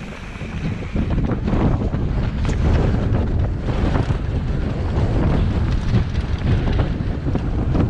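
Wind buffeting the microphone of a helmet-mounted camera on a mountain bike riding fast down a dirt trail, a steady low rumble with frequent small knocks and rattles from the bike over the rough ground.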